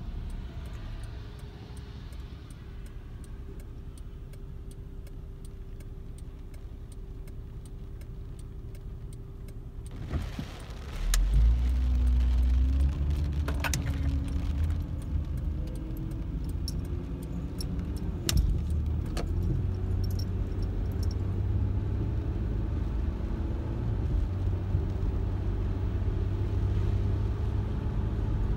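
A car heard from inside its cabin: a low, steady hum while it waits, then about eleven seconds in it pulls away and the engine rises in pitch as it accelerates, with louder low road rumble as it drives on. A few sharp clicks sound as it sets off.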